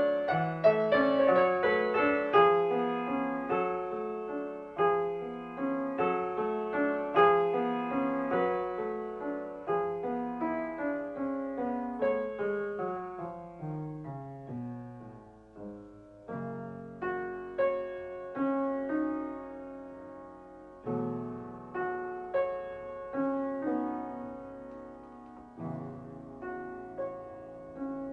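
Piano music playing a flowing melody over chords, with a run of notes falling in pitch about halfway through before it settles into slower chords.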